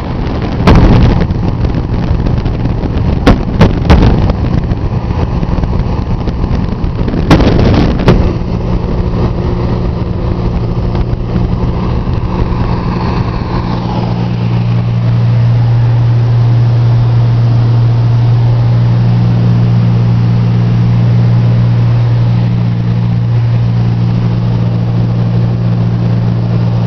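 Light aircraft's engine and propeller droning steadily, heard inside the cabin in flight, with a low hum that grows a little louder about halfway through. Several loud knocks in the first eight seconds.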